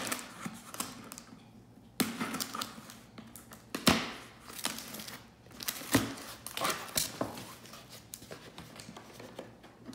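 Scissors cutting packing tape along a cardboard mailer box, then cardboard flaps scraping and crinkling as the box is pulled open, with a few sharp knocks along the way.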